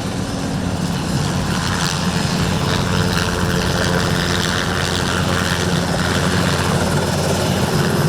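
An Enstrom 480B turbine helicopter running steadily, its rotor beating and turbine humming, growing slightly louder.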